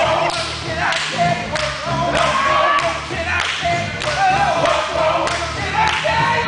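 Male gospel vocal group singing live, with a lead voice over the group's harmony, over a steady beat of thuds about every half second or so.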